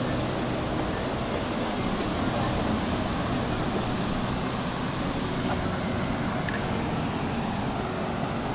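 Steady wash of ocean surf mixed with wind noise on the microphone, an even rushing hiss with no breaks.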